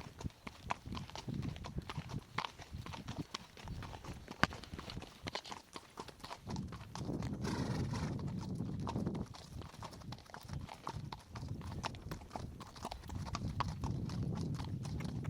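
Horse's hooves clopping as it is ridden, in a run of sharp, uneven strikes. A low rumbling noise swells up under the hoofbeats about six and a half seconds in and again near the end.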